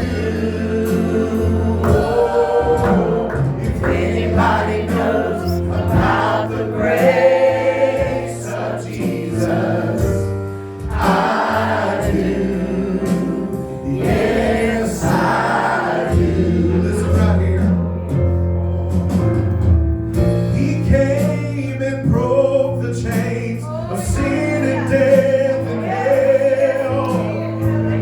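Gospel singing by a group of voices, backed by a band with sustained bass notes and steady drum hits.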